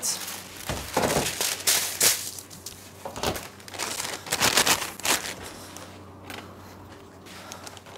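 Plastic piping bag crinkling and rustling as it is handled, in irregular bursts that die down after about five seconds.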